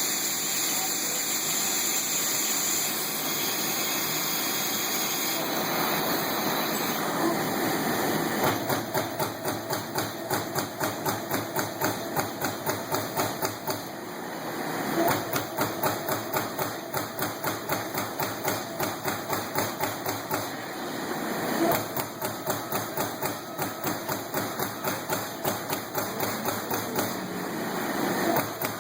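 Trumpf TC 500 CNC punch press with a hydraulically driven ram running: a steady hum for the first several seconds, then the ram striking in rapid even strokes, about three a second, with a couple of short pauses.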